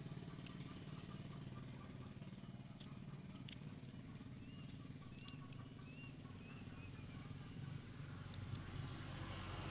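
A motor running steadily with a low, evenly pulsing hum, with a few faint sharp clicks and a short run of faint high chirps about five seconds in.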